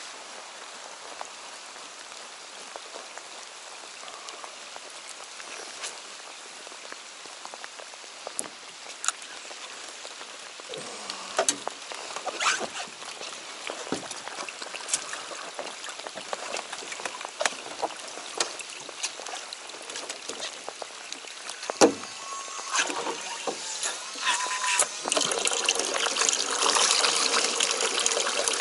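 Rain hissing steadily on the water, with scattered drops and taps. Near the end, water from a pumped livewell hose pours and splashes into a cooler, and the sound grows louder with a faint steady pump hum.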